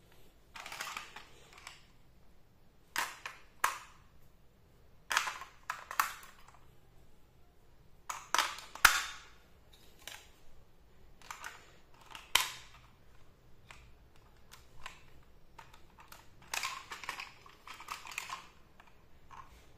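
Hands handling a plastic toy car while batteries are pressed into its battery compartment: scattered plastic clicks, taps and scrapes in separate bursts. The sharpest clicks come about nine and twelve seconds in.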